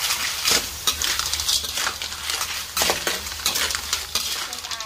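Cockle shells clattering and scraping against an aluminium wok and each other as they are stirred with a metal utensil, with a frying sizzle underneath. The stirring strokes come thick and irregular, easing off near the end.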